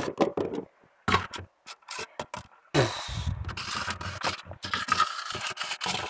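Handling noise: several short knocks, then steady scraping and rubbing from about three seconds in, as plastic cups and containers are moved about.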